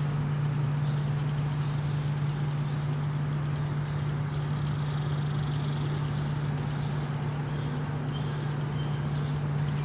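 A machine running steadily with a constant low hum over an even background hiss.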